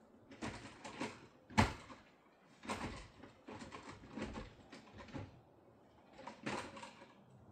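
Irregular scraping and rustling handling noises, with a sharp knock about a second and a half in.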